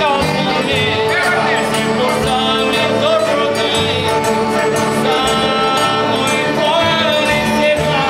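A Cajun waltz played on two fiddles, a Cajun button accordion and acoustic guitar, with a man's voice singing over the instruments.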